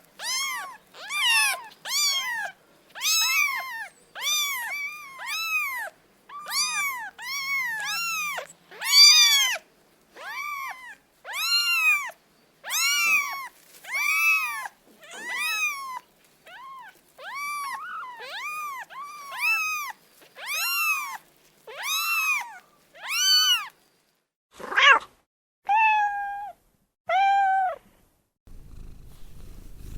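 A cat meowing over and over in quick succession, short high-pitched meows that rise and fall, about one or two a second. Near the end come a few longer, lower meows.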